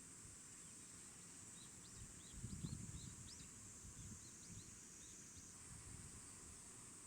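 Faint outdoor ambience: a steady high insect drone with a run of short, high chirps in the first half, over low wind rumble on the microphone that swells briefly about two and a half seconds in.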